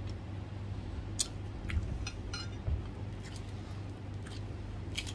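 Quiet eating sounds: a scattering of faint, short crisp clicks and crackles as crispy fried squid is pulled apart by hand and chewed, over a low steady hum.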